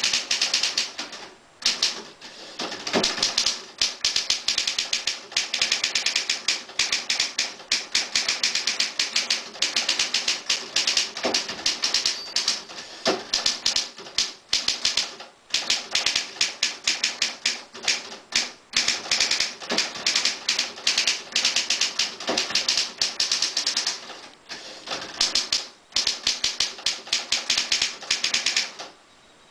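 A 1950s Triumph Perfekt manual portable typewriter being typed on: a fast, uneven clatter of typebars striking the platen, several keystrokes a second. There are a few short pauses and some heavier strikes, and it stops just before the end.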